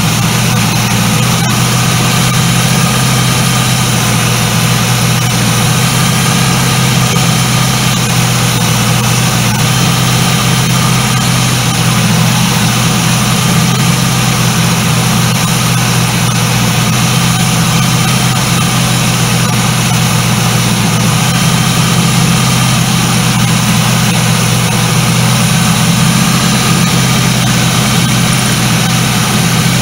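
1976 Ford LTD's V8 engine running steadily while it warms up, its electric cooling fans not yet switched on.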